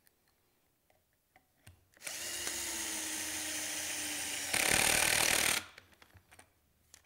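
Cordless drill driving a pocket-hole screw through a long driver bit into a clamped pocket-hole joint. The motor runs steadily for about two and a half seconds, then louder for about a second before stopping.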